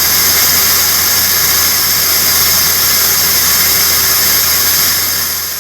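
Lathe face-cutting a stepped part with a CBN insert: a loud, steady hissing cutting noise over a low machine hum, fading out near the end.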